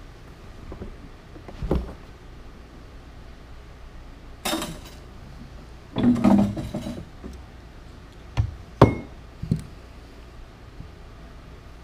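Scattered knocks, clunks and clinks of hand work in a bass boat's deck compartment as the livewell oxygenator's cylinder is cut out and lifted free, with pliers at hand. About six separate knocks, the sharpest a little under nine seconds in.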